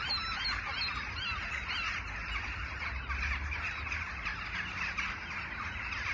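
A flock of birds calling: a dense, continuous chatter of short rising and falling calls, over a steady low rumble.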